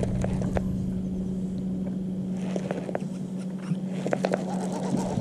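A baitcasting reel being cranked to retrieve a lure, with light clicks and rattles over a steady low hum.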